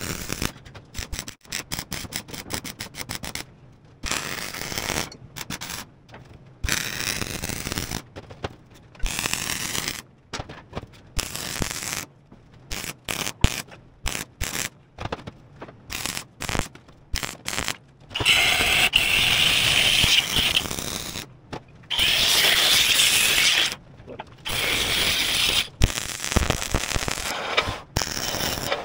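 MIG welding arc crackling and hissing in short runs and tacks that start and stop abruptly, then two longer, steadier beads in the second half.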